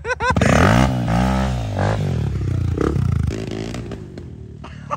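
Dirt bike engine revving hard, its pitch rising and falling as the rear wheel spins to roost mud. It eases off and gets quieter over the last second or so.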